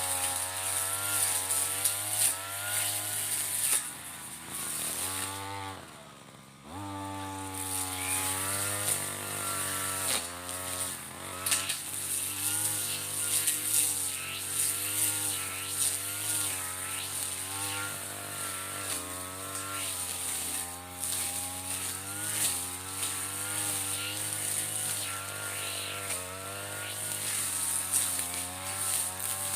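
Mitsubishi TU33 two-stroke brush cutter engine running at high revs while cutting ferns and grass, its pitch wavering with the load. About five seconds in it drops toward idle, then revs sharply back up and carries on cutting.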